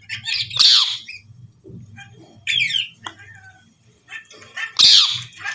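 Indian ringneck parakeet squawking: two loud, harsh screeches, about a second in and near the end, with a few shorter, softer calls between them.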